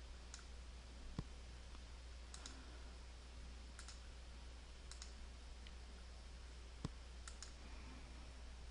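Faint, scattered computer mouse clicks, some in quick pairs, over a low steady hum.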